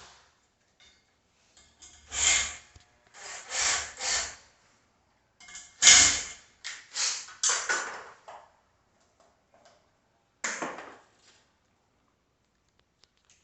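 A run of short scraping, rubbing noises, each about half a second long, then one more a couple of seconds later.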